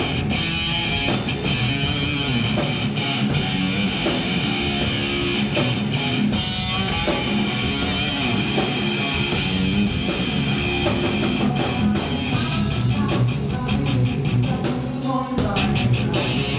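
Rock band playing, with guitar to the fore over drums and bass.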